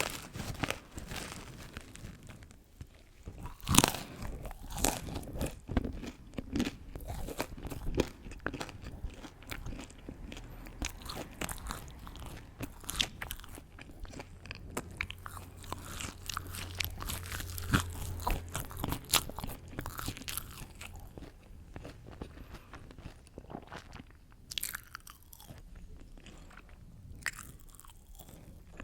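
Close-miked eating: crunchy bites and chewing, a run of short crackles with one sharp loud crunch about four seconds in, growing sparser and quieter toward the end.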